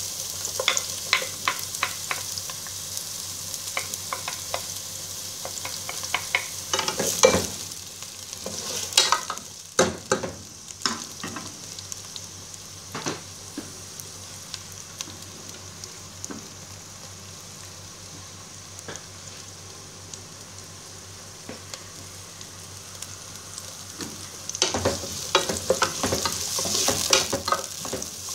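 Chopped onions sizzling in a little hot oil in a metal pot. A wooden spoon scrapes and knocks against the pot in clusters of clicks during the first several seconds and again near the end, with steady sizzling alone in between.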